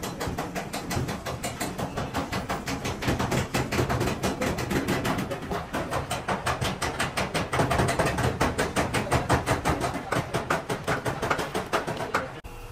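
Rapid, even hammer blows on metal, several a second, as a truck cabin's sheet-metal panels are beaten into shape; the hammering stops just before the end.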